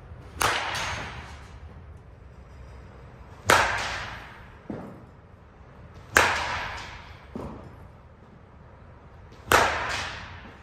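Composite slowpitch softball bat striking softballs four times, each hit a sharp crack with a ringing tail that echoes around the indoor cage. Two fainter knocks follow, each about a second after a hit.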